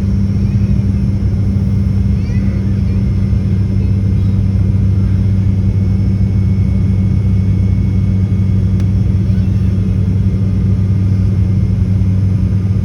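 ATR-42 turboprop engines and propellers running steadily, heard from inside the cabin as a loud, even low hum with two strong low tones.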